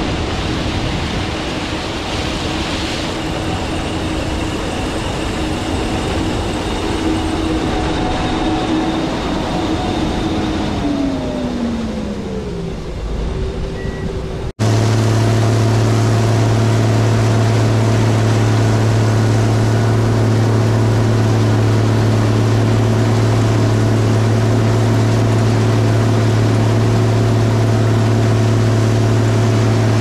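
Gleaner combines running while harvesting. At first a steady machine rush, with a faint tone in it sliding down in pitch shortly before the middle. After a sudden cut about halfway, a closer, louder and very steady low drone of a Gleaner R72 combine's engine and threshing works as it cuts soybeans.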